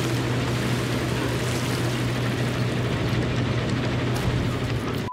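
A gold dredge's wash plant running: a steady low machinery drone under dense rushing water, with gravel spilling off the plant into the sea.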